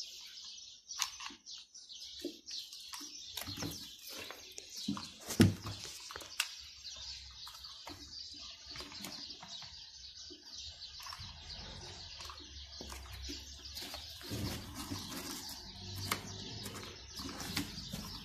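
Hands handling a hot glue gun and a sheet of glitter foam against a tin: light rustling and small scattered clicks, with one sharp knock about five seconds in.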